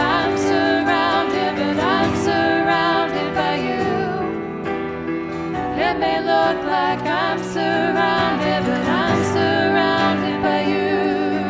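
Worship band music: steady chords with guitar under a singing voice holding long, wavering notes.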